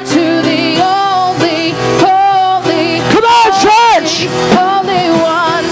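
Live worship music: a singer holding long notes with vibrato over sustained keyboard chords.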